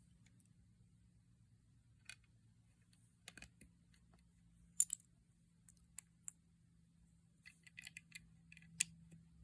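Small plastic Lego bricks clicking and tapping as they are handled and pressed together, in scattered single clicks with a quick run of clicks about three-quarters of the way through, over a faint steady hum.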